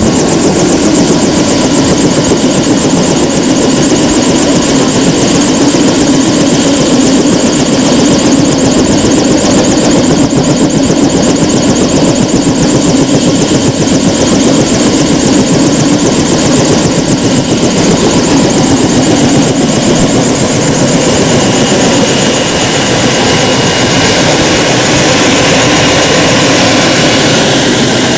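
A helicopter's turbine engine and rotor running steadily on the ground, loud and unbroken, with a thin high whine throughout.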